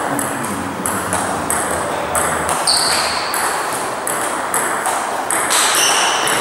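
Table tennis rally: the ball clicking off the bats and the table in quick alternation, about two to three hits a second.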